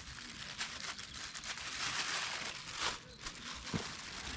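Crinkling and rustling of a plastic bag being handled, with a couple of sharp clicks near the end.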